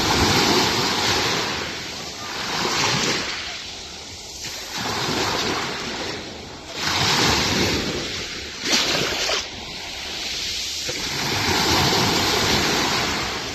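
Ionian Sea waves breaking on the shore and washing back, one surge every two to three seconds.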